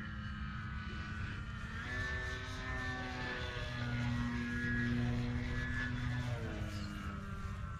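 Dynam C-188 RC model plane's electric motor and propeller whining as it flies overhead, rising in pitch about two seconds in, loudest in the middle, then falling in pitch about six and a half seconds in.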